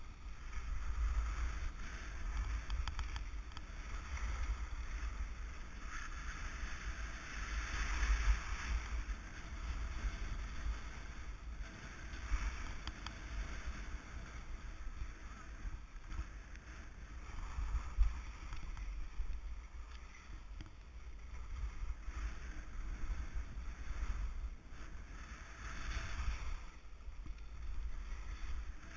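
Wind rumbling over a body-worn action camera's microphone during a downhill ski run, with edges scraping over packed, chopped-up snow in surges that rise and fade with the turns.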